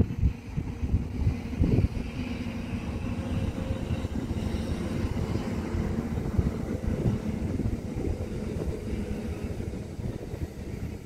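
Mercedes SLK 350 standing still while its folding hardtop retracts: a steady mechanical hum over an uneven low rumble, with a couple of louder bumps in the first two seconds.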